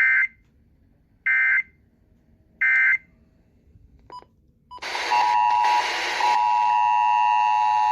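Three short warbling digital data bursts, about a second and a half apart: the EAS end-of-message code that closes a test. About five seconds in, a new radio feed comes in with hiss and a steady two-tone EAS attention signal, the alert tone that opens the next station's test.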